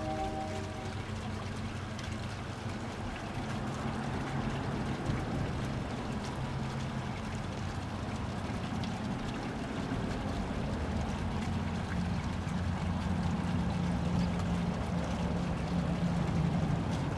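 Freight train running past: a steady rumble of wheels on track under a low diesel engine drone, growing louder toward the end.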